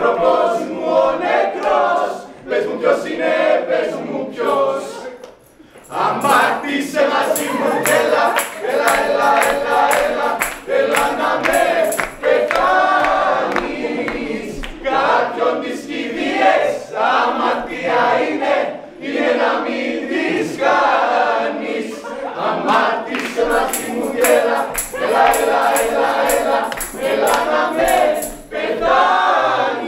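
A mixed group of men's and women's voices singing together in chorus over a steady rhythmic beat; the singing breaks off briefly about five seconds in, then resumes.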